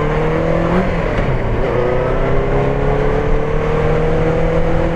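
Benelli TNT600's inline-four engine pulling under acceleration: its pitch rises, drops at a gear change about a second in, then climbs slowly and steadily again, over a steady rush of wind noise.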